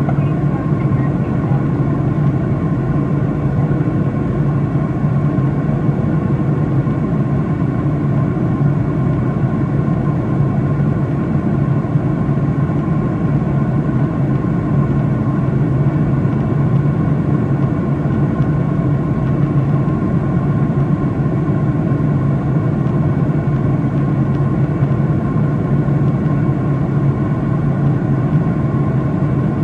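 Steady in-flight cabin drone of a Boeing 737-800 heard from a window seat over the wing: the low hum of its CFM56-7B turbofan engines and rushing airflow, with a faint steady whine.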